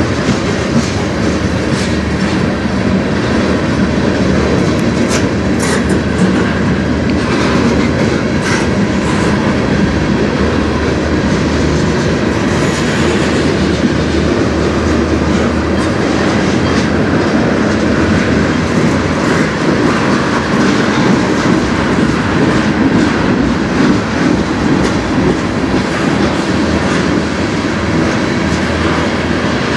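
A freight train's tank cars and covered hoppers rolling past at speed: a loud, steady rumble of steel wheels on rail, with clickety-clack and scattered sharp clicks as the wheels cross the rail joints.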